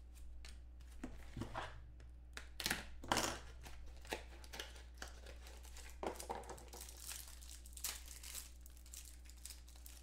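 Plastic wrapping on a pack of trading cards crinkling and tearing as it is pulled open by hand, in short irregular crackles, loudest about three seconds in.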